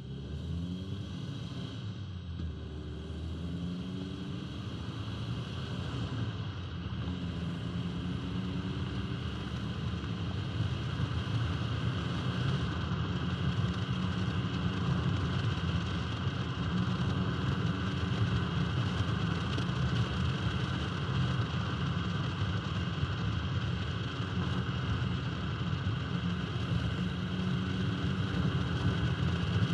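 A 1971 Alfa Romeo 1750 GTV's twin-cam four-cylinder engine pulls up through the revs twice in the first several seconds, then settles into steady running. Tyre and wind noise grow louder, heard from low on the car's flank by the front wheel.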